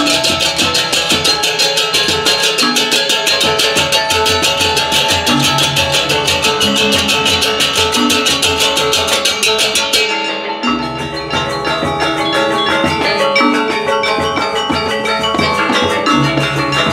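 Balinese gamelan gong ensemble playing a lelambatan piece: bronze metallophones carry the melody over drums and low gong tones, with hand-held ceng-ceng cymbals clashing in a fast, even stream. The cymbals stop about ten seconds in, and the metallophones and drums play on.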